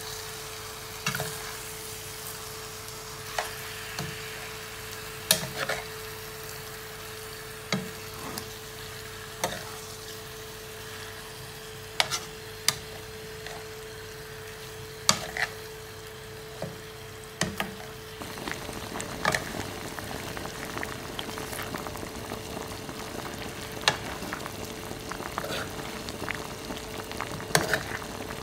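Chicken pieces sizzling in a frying pan over low heat, with sharp clacks every second or two as metal tongs knock against the pan while turning the pieces. The sizzle grows denser about two-thirds of the way in, over a faint steady hum.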